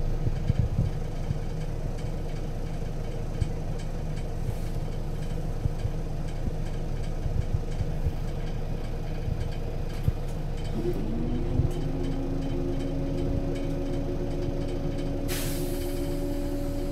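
Interior of a 2003 Scania L94UB city bus with a ZF Ecomat automatic gearbox: the engine runs steadily amid body rattles. About eleven seconds in, a whine comes in with a short rise and then holds steady. Near the end there is a brief hiss of compressed air.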